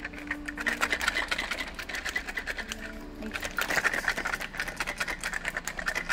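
Small cardboard blind boxes shaken rapidly by hand, the figure and packing inside rattling in a fast run of clicks. They are shaken to judge by the sound which figure is inside.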